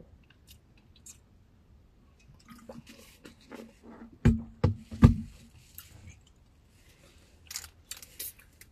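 Close-up eating sounds: chewing and mouth noises. Three loud knocks come around the middle, and a brief crackly rustle near the end.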